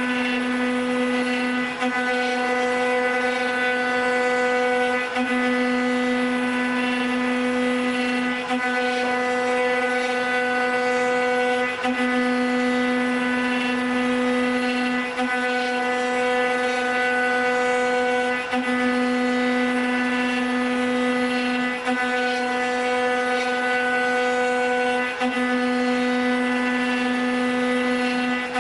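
Multi-spindle 4-axis CNC wood router running, its spindles giving a steady, loud, high-pitched whine that dips briefly about every three seconds.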